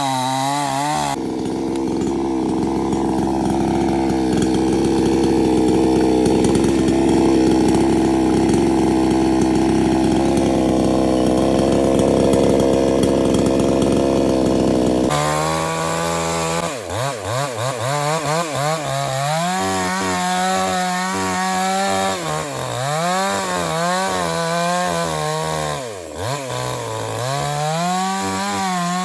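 Two-stroke chainsaw cutting wood. It runs steadily under load for most of the first half, then is revved up and down repeatedly, its pitch rising and falling every second or two.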